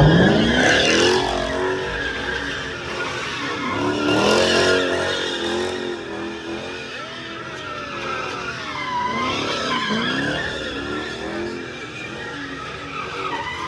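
Car engine revving up sharply at the start, then spinning tires screeching in wavering squeals throughout.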